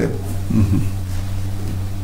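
A pause in speech filled by a steady low electrical hum, with a short, low murmur of a voice about half a second in.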